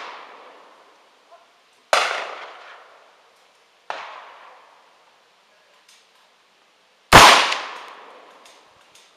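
M4-style scoped rifle firing: three shots about two, four and seven seconds in, the last the loudest and the middle one much fainter, each followed by a trailing echo.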